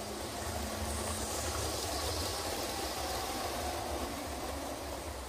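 Hornby OO gauge Class 390 Pendolino model train running along the track, a steady rumble of motor and wheels on rails that grows louder as it nears and is loudest about two seconds in.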